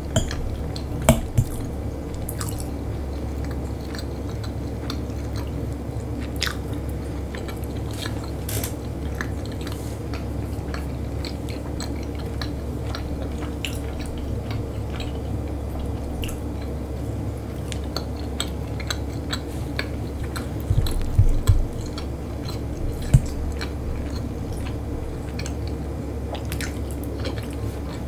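Close-miked chewing and mouth sounds of a person eating a meal of grilled meat and salad: many small wet clicks over a steady low hum. There are a few louder knocks about a second in and again around 21 and 23 seconds.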